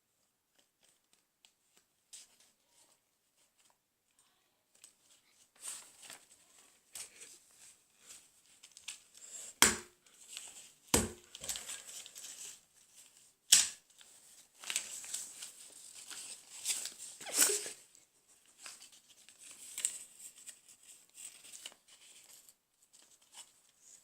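Paper rustling and crinkling as a paper bag is handled and put together, starting after about five seconds of near quiet, with three sharp clicks about ten, eleven and fourteen seconds in.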